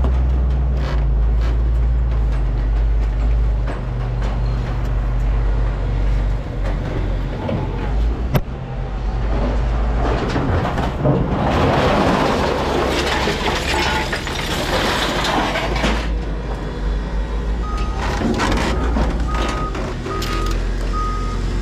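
A vehicle engine idling with a steady low drone, while a shade-cloth tarp is dragged off a load of scrap with a loud rustle in the middle. Near the end a reversing alarm starts up, a single beep repeating about once a second, from a forklift backing up.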